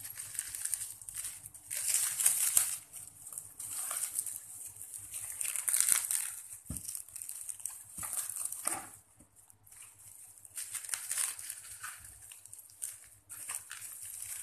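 Plastic packaging film crinkling and rustling in irregular bursts as it is pulled by hand off a wrapped tripod stand.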